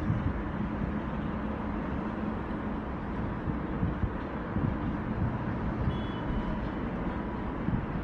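Steady traffic noise from trucks and cars crossing a concrete road bridge: a low, even road hum. About six seconds in, a brief high chirp sounds twice.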